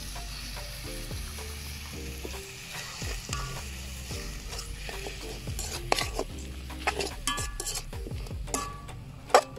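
Egg and vegetables sizzling in a hot metal wok while a slotted metal spatula stirs them, scraping and clinking against the wok, with sharper clanks in the second half and the loudest one near the end.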